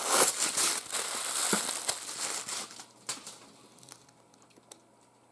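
Crinkling and rustling handling noise with many small clicks, loudest for about three seconds, then dying away to faint scattered clicks.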